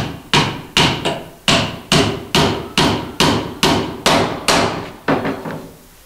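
A hammer nailing a board onto a wooden bird breeding box, about two to three strikes a second in an even rhythm. The last couple of blows are softer, and the hammering stops shortly before the end.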